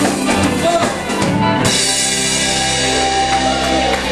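Live rock band of electric guitars, bass guitar and drum kit playing, with drum hits for the first second and a half, then ending the song on a held chord that rings on.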